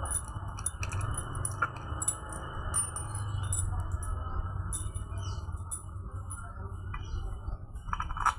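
Small metallic clicks and clinks of bolts and hand tools being handled as engine bolts are fitted, over a steady low hum.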